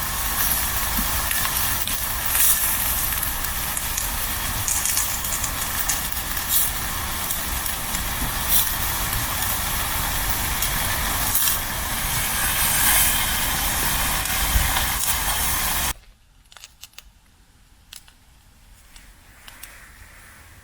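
Food frying in oil in a pan on a camping stove: a steady hiss with scattered crackles, cutting off suddenly about sixteen seconds in and leaving a much quieter stretch with a few faint clicks.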